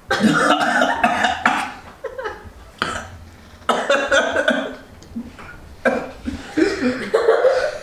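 A man gagging and retching over a bucket in about four loud bouts, his gag reflex set off by a sip of a revolting blended drink.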